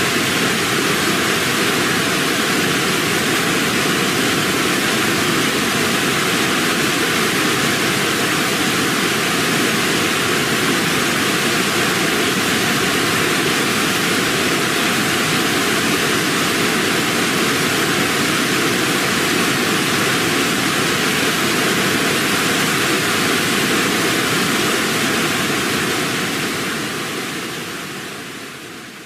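Waterfall: a steady rush of falling water, fading out near the end.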